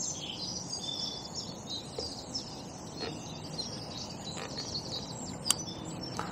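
Outdoor birdsong: many birds chirping and trilling in high notes over a low background hum of the countryside, with one sharp click about five and a half seconds in.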